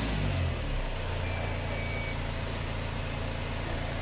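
Isuzu Panther 2.5 diesel engine dropping back from a high rev and settling within the first half second into a steady idle. A faint short electronic beep about a second in comes from the smoke-opacity meter as its print button is pressed.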